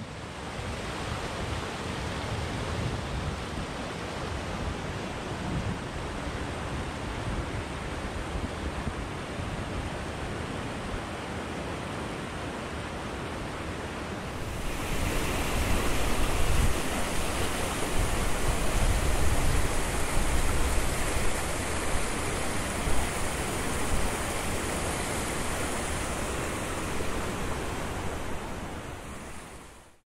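Mountain stream rushing in a steady wash of water, growing louder and hissier about halfway through.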